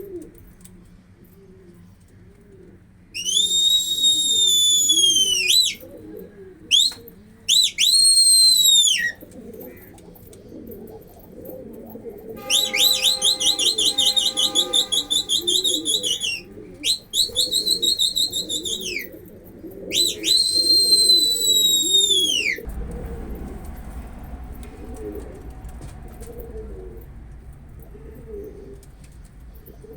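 Pigeons cooing continuously, a low wavering sound, overlaid by loud high whistles in several long notes that rise and fall, with a fast rapid trill in the middle. The whistles stop about three quarters of the way through, leaving the cooing over a low hum.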